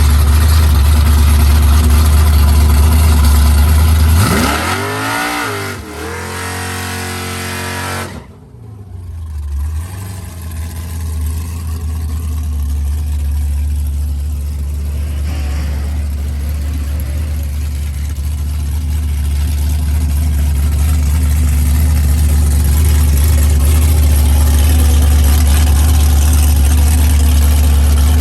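Drag-racing cars launching and accelerating away hard, their engine note climbing in pitch through the revs and fading out about eight seconds in, over a steady low engine rumble.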